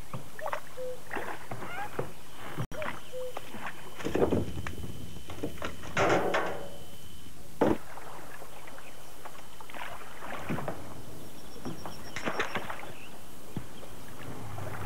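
Rowboat being rowed: oars splashing and knocking in their oarlocks, with several strokes about two seconds apart.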